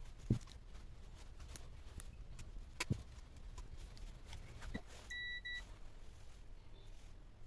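A few light clicks and knocks of handling, then about five seconds in a short, steady, high electronic beep lasting about half a second.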